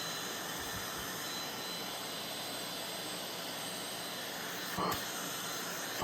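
Gaabor GVCM-M10A 400-watt stick vacuum cleaner running steadily: an even rushing whir with a faint high whine and a brief louder patch near the end.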